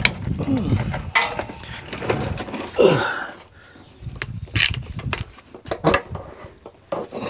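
Hand tools working on metal brake parts: scattered clicks, knocks and scrapes, with a short falling squeal about three seconds in.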